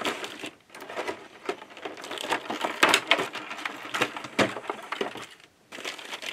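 Clear plastic bag crinkling and crackling as it is pulled off a model train car, a dense run of short irregular crackles that thins out near the end.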